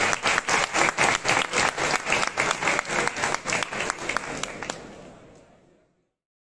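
Audience applauding, with individual hand claps standing out, fading away near the end.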